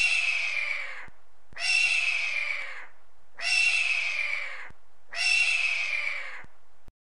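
An animal call repeated four times at an even pace, each call about a second long and falling slightly in pitch.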